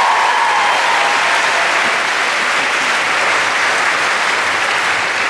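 Audience applauding, a steady spread of many people clapping that eases slightly toward the end.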